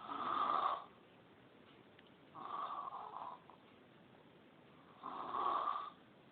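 Loud snoring in sleep: three snores about two and a half seconds apart, each lasting about a second.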